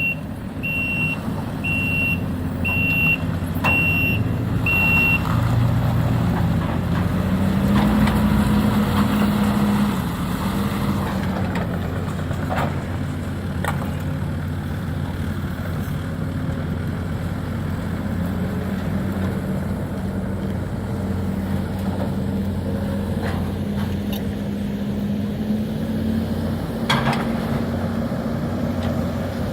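Diesel engine of a demolition excavator running under load, its pitch rising around eight seconds in, with a backup alarm beeping about once a second for the first five seconds and a few sharp knocks later on.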